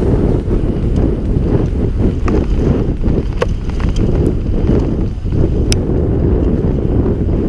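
Wind buffeting the microphone of a camera on a moving mountain bike: a loud, steady low rumble, with a few sharp clicks from the bike in the middle.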